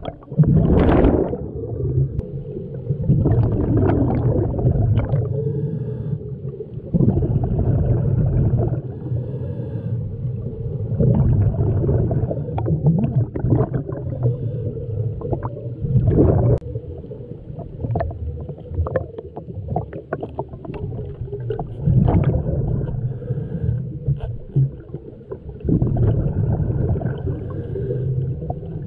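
Scuba diver breathing underwater through a regulator: gurgling rushes of exhaled bubbles every few seconds over a steady low rumble.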